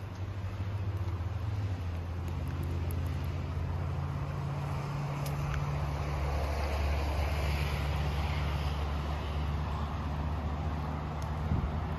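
Road vehicle noise: a steady low hum with a rush of tyre noise that swells and fades around the middle.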